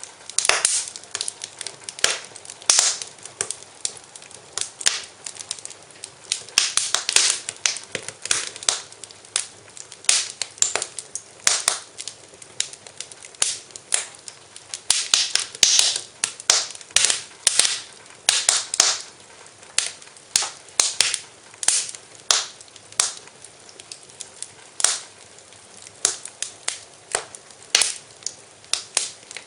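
Wood fire in a fireplace crackling, with irregular sharp pops and snaps over a faint hiss.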